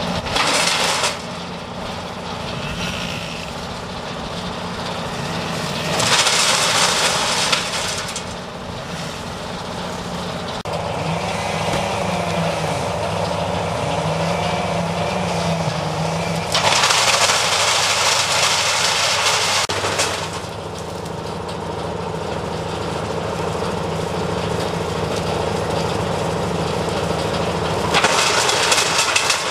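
Truck-mounted wood chipper shredding brash: its engine runs steadily, with loud noisy bursts each time branches are fed in and chewed up, four times: at the start, about six seconds in, for several seconds from about sixteen seconds, and near the end.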